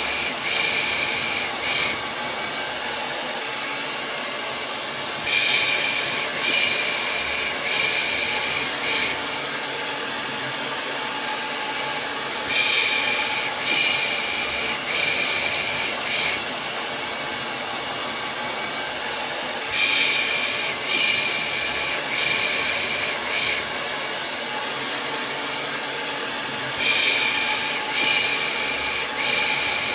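Hair dryer running with a steady whoosh, under a repeated 'pış pış' shushing of the kind used to soothe a baby to sleep. The shushes come in runs of about four short hisses, one run every seven seconds or so.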